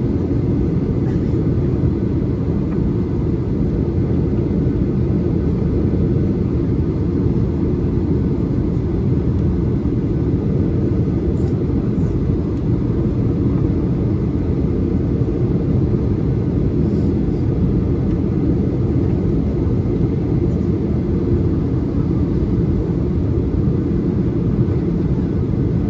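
Steady in-flight cabin noise of a Boeing 737-800: a low, even rumble of engines and airflow.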